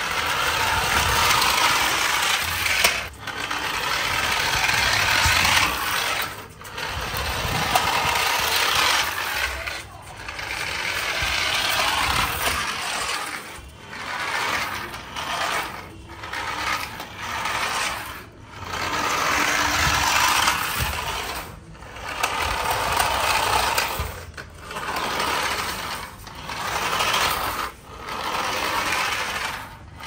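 Toy remote-control car's small electric motor and gears whirring as it drives over concrete, in spurts of one to three seconds with short pauses between.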